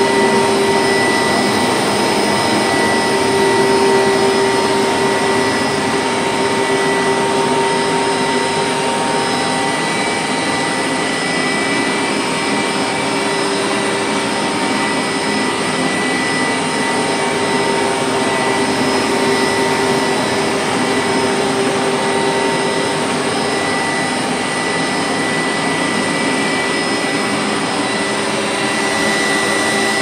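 Hoover SteamVac Widepath upright carpet cleaner running steadily as it is worked across carpet, a constant motor whine over an even rushing suction noise.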